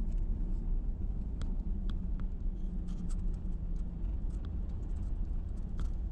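Car driving on a gravel road, heard from inside the cabin: a steady low rumble of tyres and engine, with scattered light clicks and ticks.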